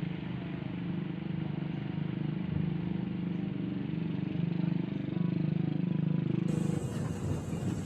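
A vehicle engine running steadily with an even hum. About seven seconds in, it gives way to rough, gusty noise.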